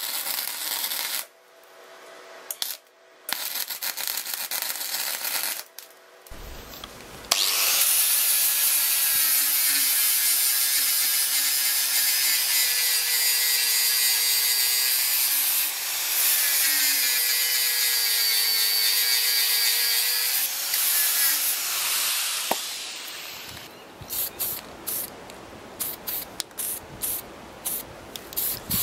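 MIG welding on steel, the arc crackling in a few bursts during the first six seconds. Then an angle grinder runs on steel box section, a loud steady whine with its pitch dipping slightly under load, winding down about 22 seconds in. Near the end an aerosol spray paint can gives a series of short hisses.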